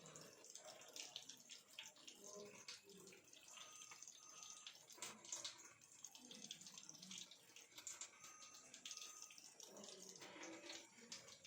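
Near silence: faint room tone with scattered soft clicks.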